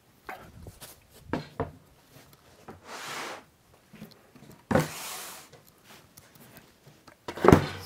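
Handling noises in a small room: a scatter of knocks and clunks, two short scraping or sliding sounds, and a loud knock near the end.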